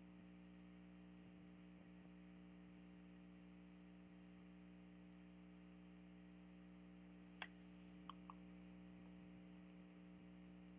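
Near silence: a steady low electrical hum, with three faint short clicks about two-thirds of the way in.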